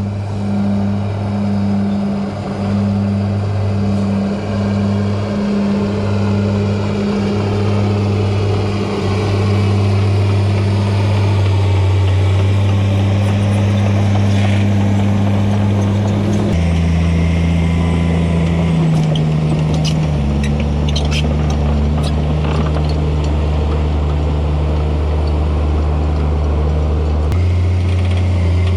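Diesel engine of a Komatsu D51PX-22 crawler dozer running under load while it tracks and packs a steep fill slope. Its engine speed shifts down about 16 and 19 seconds in and comes back up near the end, with light clanks of the tracks in the middle.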